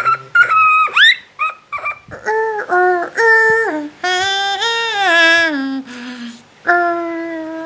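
A voice singing a run of drawn-out notes, several held for about a second and dropping in pitch at their ends. Before that come quick, squeaky, high-pitched vocal chirps.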